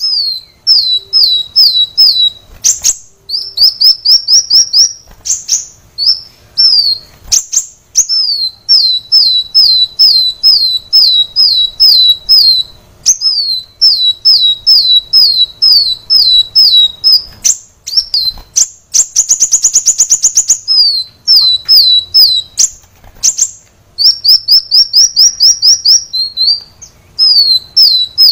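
Kolibri wulung, a sunbird, singing in fast runs of high, sharp, down-slurred chirps, with short pauses between phrases. About two-thirds of the way through there is a buzzy rattling trill.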